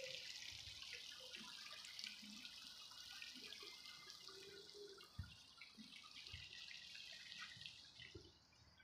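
Near silence: a faint steady high hiss of outdoor ambience, with a few soft low thumps.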